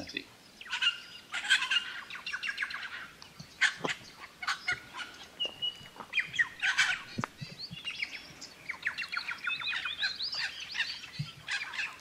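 A loud bird chorus of many species singing and calling at once, an absolute cacophony of overlapping chirps and trills, with a short steady whistle about halfway through.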